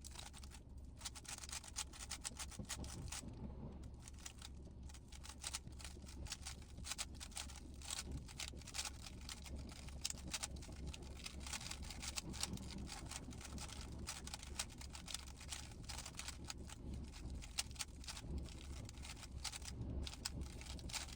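Rapid clicking of a GAN 15 speed cube's layers being turned, many short clicks a second with brief pauses, over a steady low hum.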